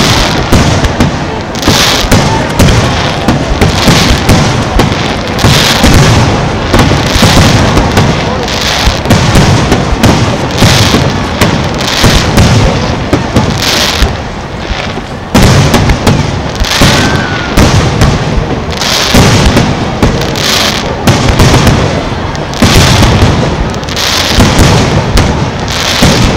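Aerial firework shells bursting in quick succession, a dense barrage of booms and crackling. Partway through there is a brief lull, then the barrage starts again with a sudden loud burst.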